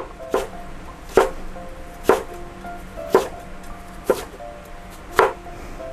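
Knife slicing jicama on a cutting board: six separate cuts, about one a second.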